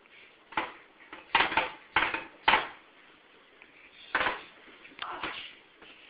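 A series of sharp clattering knocks, about six, four close together in the first three seconds and two more near the end.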